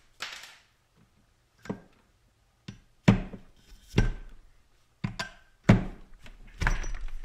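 Irregular sharp knocks and clunks from a clamp and pins being handled on a workbench while scale-pattern netting is freed from a painted blade bait. There are about eight separate strikes with pauses between them, and a quick cluster of knocks near the end.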